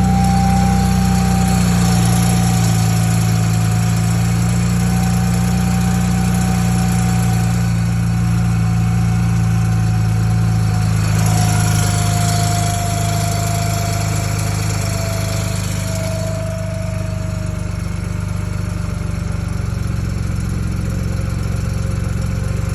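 BMW N54 twin-turbo inline-six idling just after start-up, with a thin steady whine above the engine note that slowly drops in pitch as the idle settles. The whine on start-up is the fault the owner is asking about, on an engine with new turbos.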